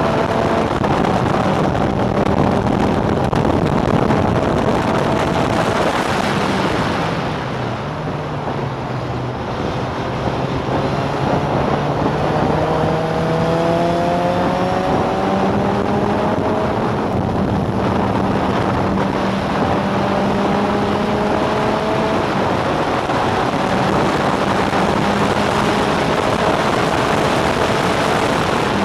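Onboard sound of a historic open-wheel formula racing car at speed. Its engine note climbs and steps back down with the throttle and gear changes, dipping lower about a quarter of the way in. Heavy wind rush runs underneath.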